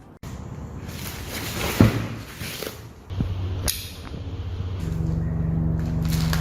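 Unboxing handling of the Mi Robot Vacuum-Mop's cardboard packaging: rustling with a couple of sharp knocks, about two seconds in and just before four seconds. A steady low hum starts about five seconds in.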